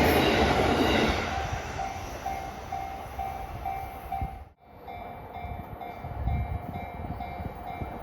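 A train running over a Japanese level crossing, its rumble dying away after about a second, while the crossing's electronic warning bell rings in an even repeating ding, about two a second. The sound cuts out briefly about halfway through, and the bell carries on after the break.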